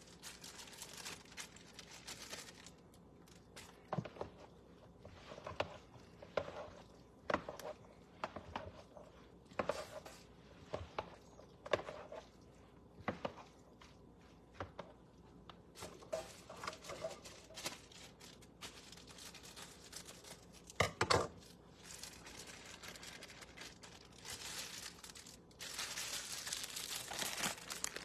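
Irregular clicks, knocks and scrapes of a utensil against a bowl as cooked rice is added and mixed into the ground beef filling, with a louder double knock about two thirds of the way in and a rougher scraping rustle near the end.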